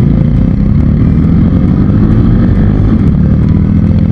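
Motorcycle running steadily while being ridden, a loud, even low rumble.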